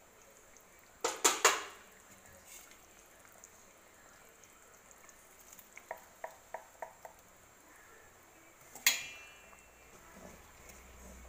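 Steel mixer jar and wooden spoon knocking against a clay cooking pot while ground masala paste is emptied into a curry and stirred in. Three loud sharp knocks come about a second in, a quick run of about six light taps around six seconds, and a single ringing metal knock near nine seconds.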